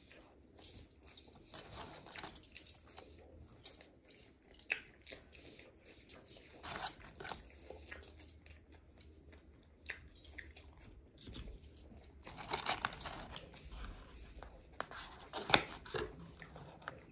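Chewing and mouth clicks from eating french fries dipped in sauce, a series of scattered short smacks, with a busier stretch and one sharper click about fifteen seconds in.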